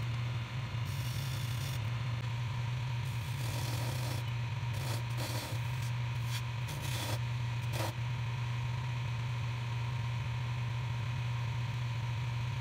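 Wood lathe running with a steady hum while a parting tool cuts sizing grooves into a spinning spalted maple column, a rough scraping that comes and goes, with a few short sharper scrapes between about five and eight seconds in.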